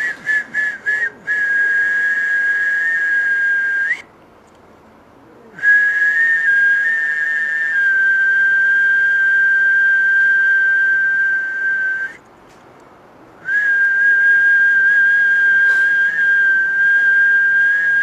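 High whistled tone: a quick run of short pips at the start, then three long steady notes held for several seconds each, with short breaks between them.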